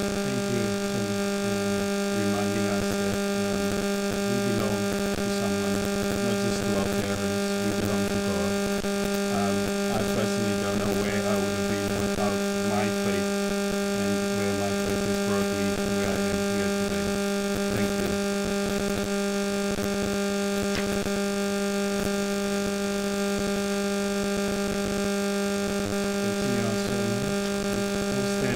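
Loud, steady electrical mains hum with many overtones in the recording or sound system, unchanging throughout. A faint, muffled voice shows through it at times.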